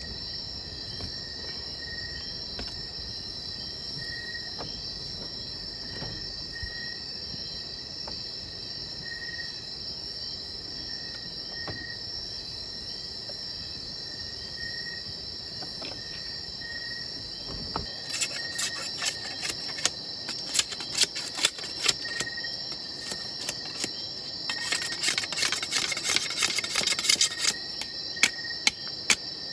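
Rainforest insects buzzing steadily in a high band, with a short chirp repeating about every two seconds. A little past halfway a run of sharp knocks and taps starts, coming thick and fast for a few seconds near the end.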